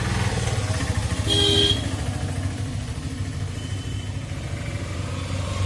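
Handheld hot air gun's blower running steadily with a low hum while it heats the solder of a Bluetooth speaker's old charging socket to remove it. A short high tone sounds briefly about a second and a half in.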